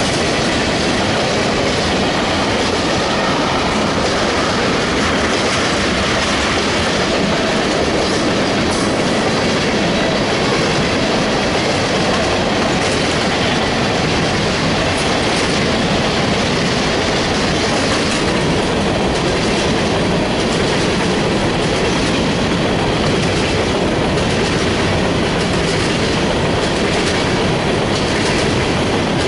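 Freight train cars (covered hoppers and tank cars) rolling past: a loud, steady rumble and clickety-clack of steel wheels over the rails.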